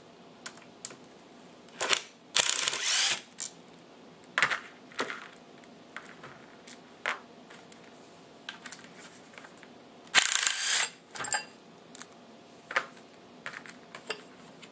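A cordless power driver with a Phillips bit runs in two short bursts, about eight seconds apart, backing out the butt plate screws of a rifle stock. Between and around them come scattered clicks and knocks of screws and parts being handled and set down on a table.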